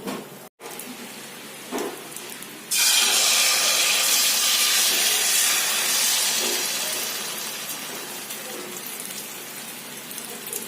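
Tortang talong, egg-dipped eggplant, frying in hot oil: a loud sizzle starts suddenly about three seconds in and slowly dies down.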